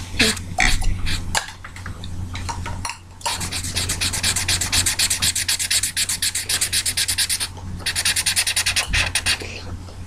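Felt-tip marker scribbling back and forth on paper while colouring in a drawing. It starts as irregular scratchy strokes, then settles into a fast, even run of about six strokes a second from about three seconds in, with a brief pause near the end.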